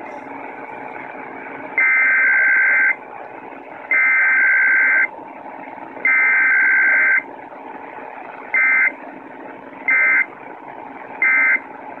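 Emergency Alert System digital data tones (SAME bursts) played over AM radio through a portable receiver's speaker. Three buzzing two-tone bursts of about a second each (the alert header), then three short bursts (the end-of-message code), spaced about a second apart, over steady radio hiss and hum.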